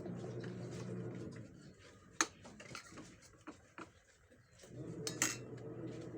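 Eating sounds: sharp clicks and taps of utensils on dishes, the loudest about two seconds in and again about five seconds in. Under them runs a low steady hum that fades out for a few seconds mid-way and then returns.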